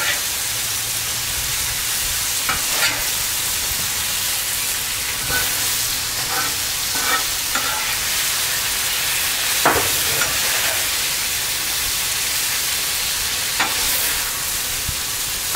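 Chicken, noodles and vegetables in sauce sizzling steadily on a hot flat-top steel griddle, with a metal spatula scraping and clicking on the steel now and then as the food is stirred.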